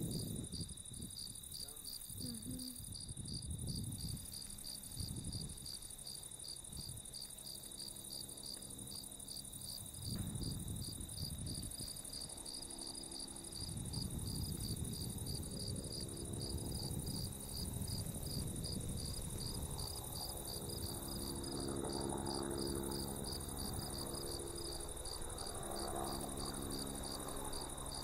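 Insects calling steadily in the park: a high-pitched chirp pulsing at an even rhythm over a continuous high buzz, cricket-like. Uneven low rumbling noise lies underneath.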